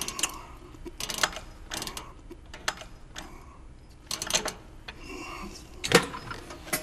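Combination dial of a steel safe clicking as it is turned, in several short runs of clicks, then a louder clunk about six seconds in as the lever handle is pulled to throw the bolt.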